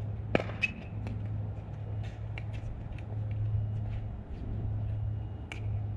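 Pickleball play: several sharp pops of paddles hitting the plastic ball and the ball bouncing on the court, irregularly spaced, the loudest about half a second in, over a steady low hum.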